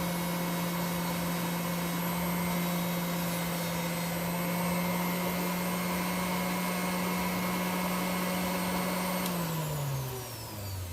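An electric motor running steadily with a whirring hum, then switched off about nine seconds in, its pitch falling as it spins down.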